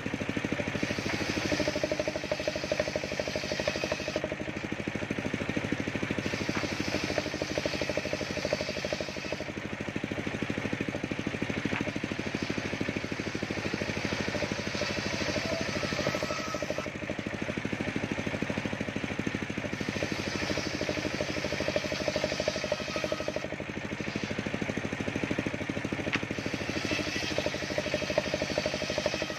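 Circular saw bench running steadily with a low hum while ripping waru (sea hibiscus) wood planks, the rasping cut swelling for a few seconds at a time over several passes.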